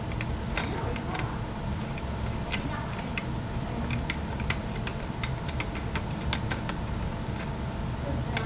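Tools and metal parts clinking at a BMX bike's rear wheel: irregular sharp metallic clicks, some with a short high ring, over a steady low hum.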